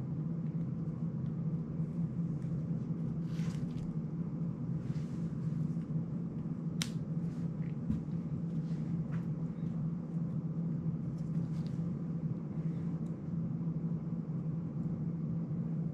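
Steady low hum of room noise, with faint clicks and rustles from a small plastic FPV drone being handled and worked on; one sharper click about seven seconds in.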